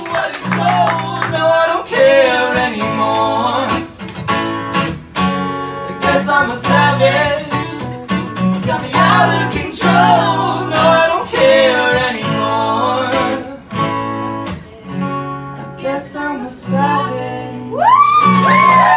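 Live acoustic guitar strumming chords while a man and a woman sing, with a loud rising vocal line near the end.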